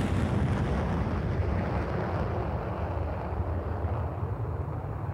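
Jet noise of a Boeing B-52 Stratofortress's eight jet engines flying past: a deep, steady rumble with a hiss that slowly fades as the bomber moves away.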